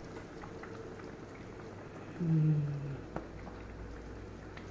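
A pot of chicken afritada stew simmering on the stove, a steady soft bubbling with small pops. About two seconds in a short falling hum from a voice is the loudest sound, followed by a single click.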